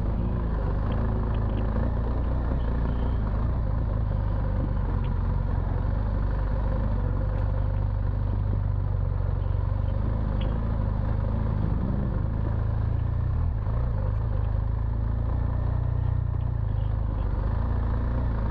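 BMW R1200 GS Adventure's flat-twin boxer engine running steadily as the bike rides slowly along a rough dirt trail.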